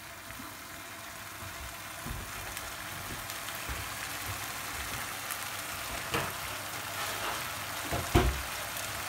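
Sauce with sliced vegetables sizzling in a frying pan on a gas hob as it comes up to heat, a steady hiss that grows slightly louder. Two light knocks near the end.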